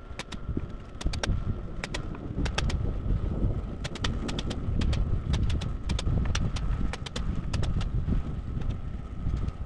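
Nail gun driving nails through floor joists into the sill plate: a run of sharp clicks and knocks, two or three a second at uneven spacing, over wind rumbling on the microphone.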